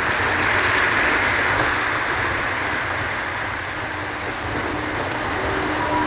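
Small waves breaking and washing across shallow water over sand, a steady rush that swells about a second in and then eases.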